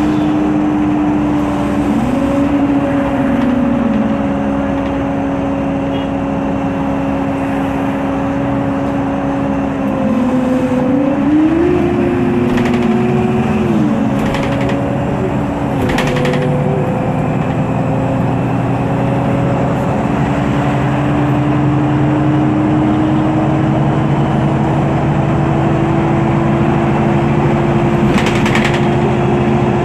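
MAN Lion's City CNG bus under way, heard from on board: the MAN E2876 gas engine runs with a steady whine from its cooling fan. The engine pitch rises and falls twice, and there are a few short clicks.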